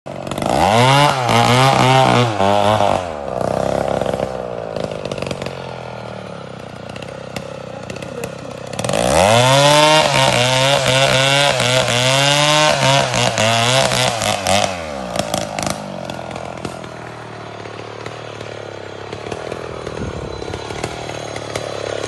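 Two-stroke chainsaw revved hard twice, for a few seconds each time, with its pitch wavering up and down. It idles steadily in between and afterwards.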